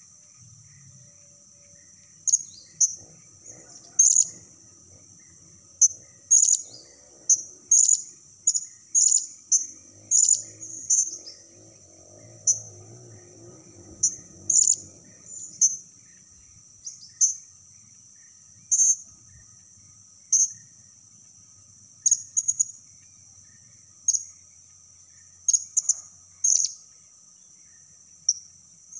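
Blue-crowned hanging parrot (serindit) calling as a lure: short, high, thin chirps, often in quick runs of two or three, repeated every second or two.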